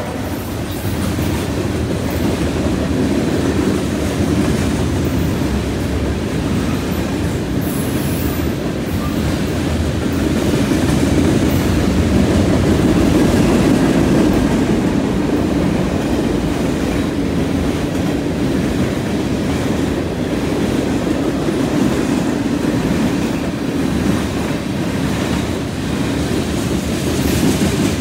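Freight train cars, tank cars and covered hoppers, rolling past close by: a steady rumble of steel wheels on rail that swells a little around the middle.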